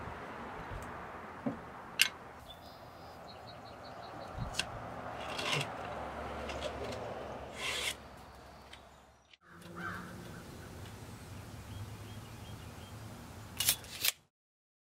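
Light knocks, clicks and rustling from hands pressing bonsai soil mix into terracotta pots on a wooden table, over a steady background hiss and low hum.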